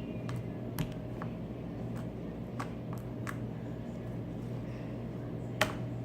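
Slime being squeezed and handled, giving off scattered small clicks and pops, about seven in all, the sharpest near the end, over a steady low room hum.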